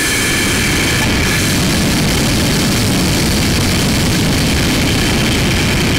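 Steady, loud rushing noise of a model rocket climbing, picked up by the small keychain camera riding inside it: the motor's thrust and the air rushing past the airframe.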